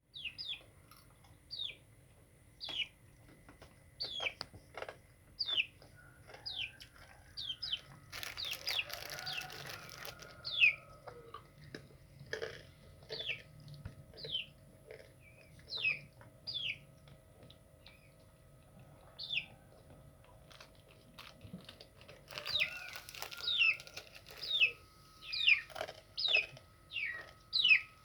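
A small bird chirping over and over: short, high chirps that fall in pitch, roughly one a second. There are spells of rustling noise about a third of the way in and again near the end, when the chirps come thicker.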